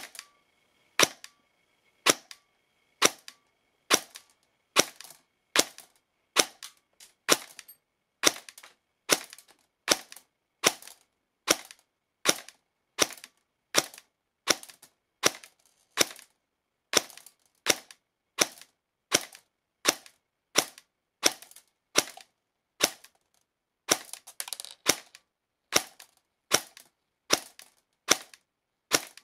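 Airsoft electric gun (AEG) fitted with a 3D-printed air nozzle firing single shots through a chronograph, about one sharp crack a second. The shots are being clocked at around 310 fps with 0.2 g BBs.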